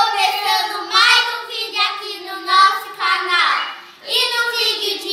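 Children singing in high voices, a few held phrases with short breaks between them.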